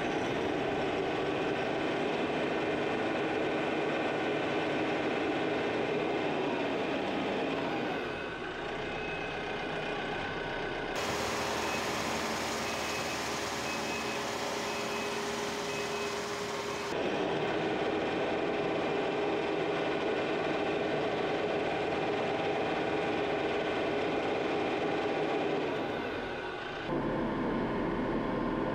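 Tractor engine running steadily, in several spliced clips whose sound changes abruptly at each cut. In one clip a short high beep repeats several times over the engine.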